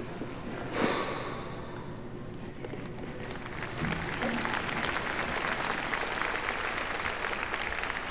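A short burst of noise about a second in, then audience applause that swells in about three and a half seconds in and carries on steadily.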